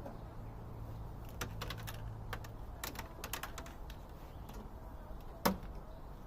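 Scattered light clicks and taps, with one louder knock about five and a half seconds in, over a low steady hum that stops about two and a half seconds in.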